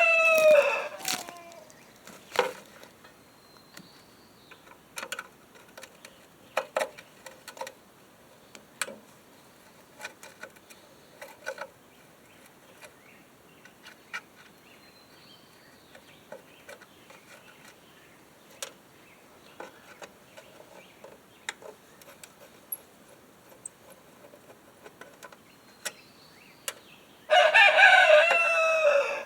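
A rooster crows twice, once right at the start and again near the end, each call about two seconds with a falling tail. In between, scattered light clicks and knocks.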